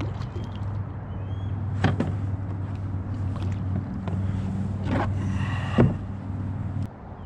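A boat motor running with a steady low hum, cutting off abruptly near the end. Over it, a hooked redfish splashes at the surface: a sharp splash about two seconds in, then more splashing around five seconds in that ends in another sharp splash.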